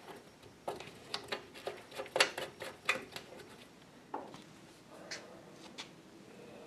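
Hands working the metal cap on a gallon can of epoxy primer catalyst: a quick run of sharp metallic clicks and taps, then a few scattered ones.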